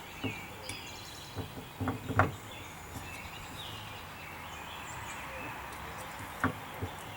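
Several sharp knocks of a tool beating on metal: a cluster around two seconds in and two more near the end. Birds chirp in the background.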